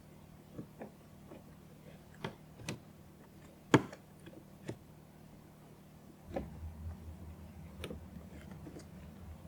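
Plastic interior trim panel being fitted by hand: scattered light clicks and taps of the panel and its clips, with one sharp click about four seconds in. About six seconds in, a low steady hum sets in.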